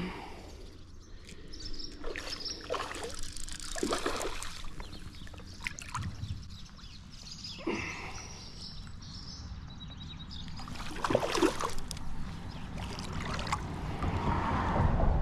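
Creek water running, with irregular splashes and rustles every second or two while a hooked brown trout is fought on a fly rod, over a steady low rumble.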